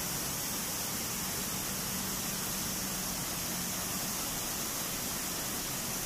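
Steady rushing of a shallow river running over rocks, an even hiss that holds level throughout.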